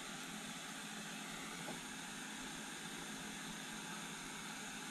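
Lexivon LX-770 butane soldering iron burning with a steady hiss, its jet tip heating heavy-gauge stranded copper wire.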